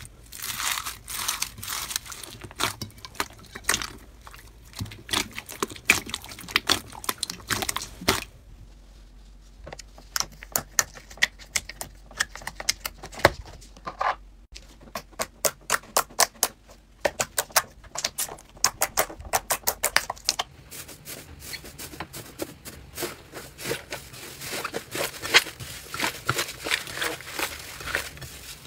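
Slime being squeezed and pressed by hand, giving runs of sharp crackling and popping clicks. The pattern of clicks changes twice, about a third and two thirds of the way through.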